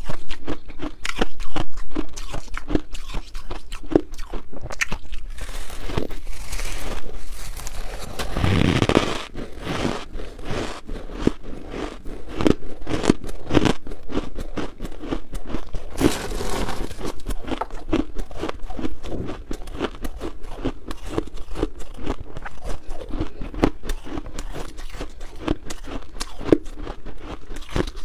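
Close-miked crunching and chewing of a mouthful of shaved ice, a dense run of crisp crackles with a steady chewing rhythm. A longer rasping noise comes about eight seconds in.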